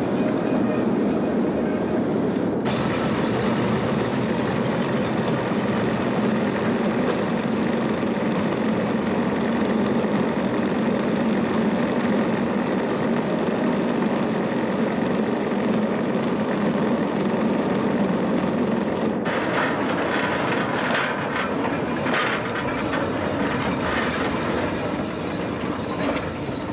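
Opicina tramway's cable-hauled incline: a steady rumble and hum of the steel haulage cable running over its track rollers and the tram rolling on the rails. The sound changes abruptly twice, and irregular clicks and rattles come in over the last several seconds.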